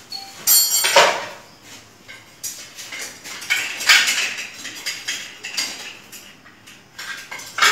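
Metal dishes and utensils in and around a kitchen sink clinking and clattering as a man reaches under the sink. There are scattered knocks and scrapes, and a sharp ringing clink about half a second in is the loudest.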